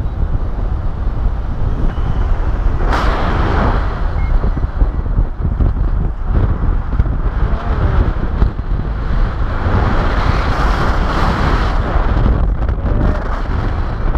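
Airflow buffeting the camera microphone during a paraglider flight, a steady low rumble of wind noise. It swells into louder gusts about three seconds in and again around ten seconds.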